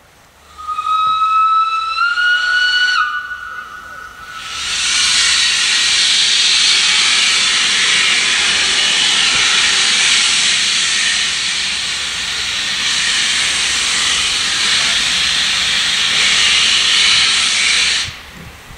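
Steam whistle of an Ivatt class 2 steam locomotive blown once for about two seconds, its pitch stepping up slightly partway through. About two seconds later a loud, steady hiss of escaping steam starts and runs for over ten seconds before cutting off suddenly.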